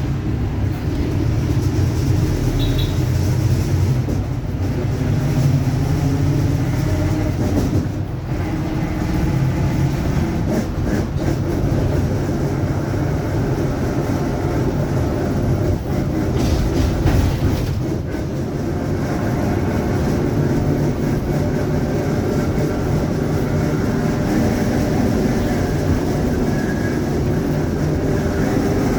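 Mercedes-Benz OF-1721 city bus under way: its diesel engine's pitch rises and falls with the gear changes over a steady drivetrain drone, and the differential is growling.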